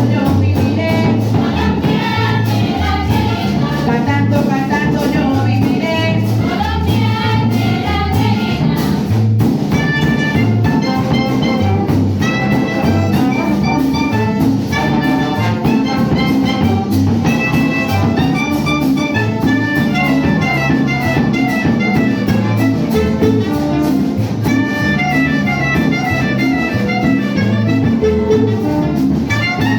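Symphony orchestra playing a Colombian porro, with a steady, repeating beat in the bass.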